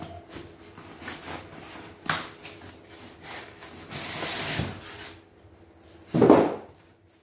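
Unpacking noises: a styrofoam packing tray and paper rubbing and scraping against a cardboard box as the tray is handled and lifted out. Irregular rustles, with a longer hissing scrape around four seconds in and a louder, heavier scrape just after six seconds.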